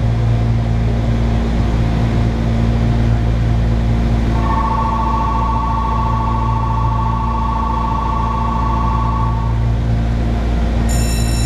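A station departure bell rings steadily with a rapid trill, starting about four seconds in and stopping about five seconds later, over the steady hum of the stationary Shizuoka Railway 1000 series electric train. Near the end, a short high electronic tone begins.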